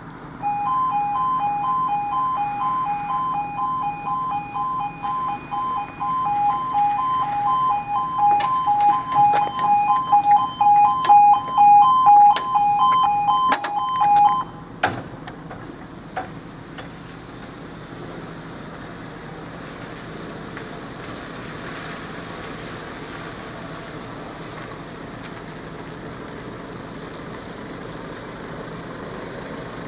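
Level crossing's electronic E2S alarms sounding a rapid, pulsing two-tone beep as the crossing activates. The alarm cuts off suddenly about fourteen seconds in, once the barriers are down. A few sharp knocks sound during its last seconds, and after it only a steady low background hum remains.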